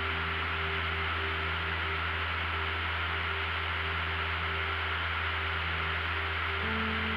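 Light aircraft's engine and propeller droning steadily in cruise, with a constant rush of wind through the doorless cabin; the tone shifts slightly near the end.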